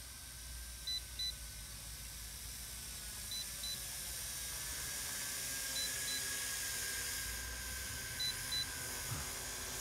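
Drone radio controller beeping in pairs of short high beeps, four pairs about two and a half seconds apart, signalling that return-to-home mode is engaged on the RISE Archon quadcopter. Under the beeps, a steady faint hum of the drone's propellers.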